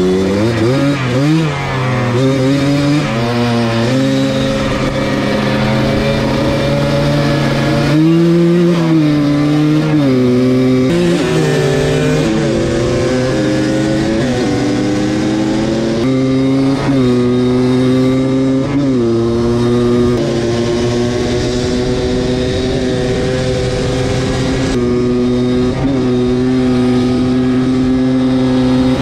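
Two-stroke ATV engines from a Yamaha Blaster and a Kawasaki Tecate 4, recorded onboard as they ride side by side. The engines rev up and drop in pitch at each gear change several times, then run at fairly steady revs through the last several seconds.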